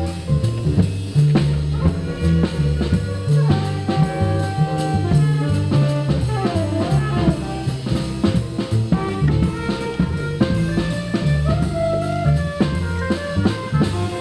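Jazz background music with a drum kit keeping a steady beat under a bass line and a horn melody.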